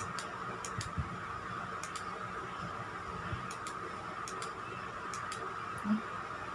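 Faint, scattered light ticks and clicks over a steady background hiss, with a soft thump about a second in.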